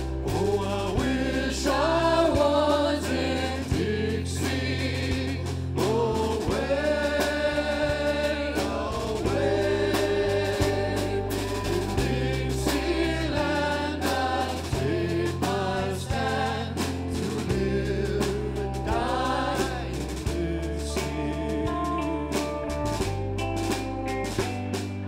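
Live big band playing: drum kit, bass guitar, electric guitars and a saxophone section, with a backing choir singing held notes above them.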